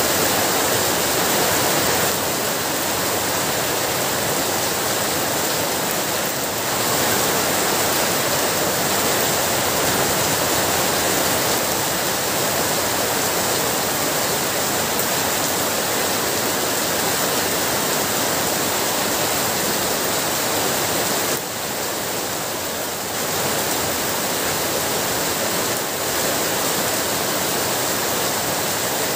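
Heavy rain falling steadily: a dense, even hiss with no separate drops standing out, easing slightly for a moment about three-quarters of the way in.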